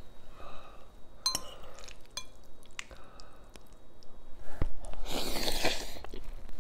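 A metal fork clinks a few times against a glass bowl as it twirls ramen noodles. This is followed near the end by the loudest sound, a slurp of noodles lasting about a second.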